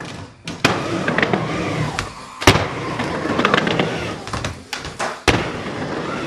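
Skateboard riding a mini ramp: the steady rumble of the wheels rolling, broken by several sharp clacks as the board and trucks hit the ramp and coping.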